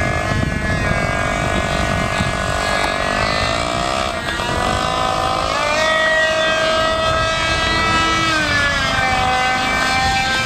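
Motor of a depron foam RC MiG-29 model whining in flight. Its pitch swoops down and back up several times as the plane passes and the throttle changes, then settles near the end.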